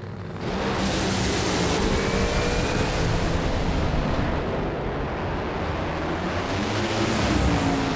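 Supercharged, nitromethane-burning V8 engines of NHRA Funny Cars at full throttle on a drag run. A loud, dense noise that starts suddenly about half a second in and holds.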